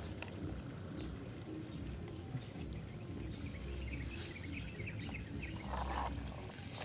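Outdoor background ambience with a run of small, high chirps in the middle, and a brief rustle about six seconds in.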